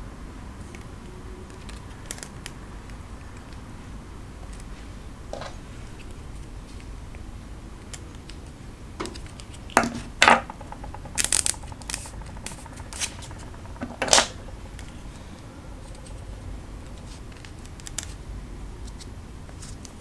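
Diamond painting pens, metal and plastic, clicking and tapping as they are handled and set down on a wooden table: scattered light clicks, with a cluster of louder ones about halfway through.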